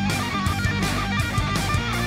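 Background music: guitar-led instrumental with a steady beat.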